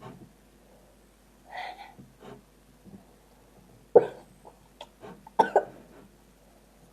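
A girl coughing in short bursts, with the loudest cough about four seconds in and a quick double cough about five and a half seconds in.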